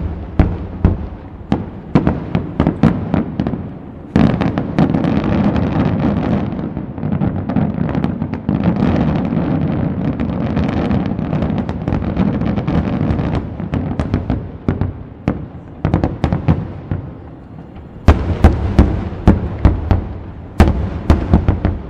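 Aerial fireworks shells bursting in rapid succession, with many sharp bangs. From about four seconds in until about thirteen seconds the reports merge into a dense, continuous rumble and crackle. After that come separate bangs again, with a fast volley near the end.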